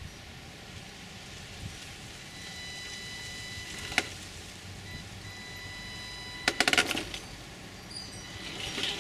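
HB Toys R1013 RC rock crawler creeping down concrete blocks: a faint whine from its electric drive, with a sharp knock about four seconds in and a quick rattle of knocks around six and a half seconds as the tyres and chassis strike the blocks.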